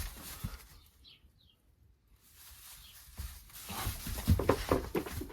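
Rustling and scuffing in straw bedding with soft knocks, building up from about two seconds in; two faint high chirps about a second in.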